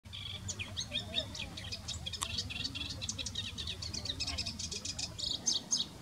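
Male moustached warbler singing: a rapid, continuous run of short, varied high notes, quickening near the end into an even string of repeated notes.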